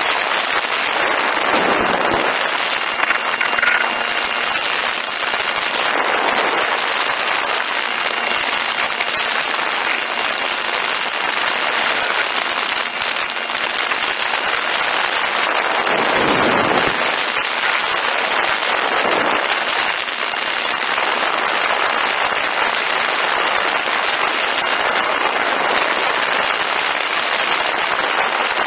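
Steady rushing wind and propeller noise on the onboard camera microphone of a Ranger 2000 FPV model plane in flight, with a faint steady high-pitched motor whine. The rush swells and dips briefly a few times, most deeply about two-thirds of the way through.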